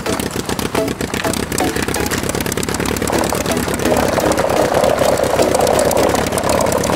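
An engine idling with a rapid, even chugging that gets somewhat louder and brighter about halfway through.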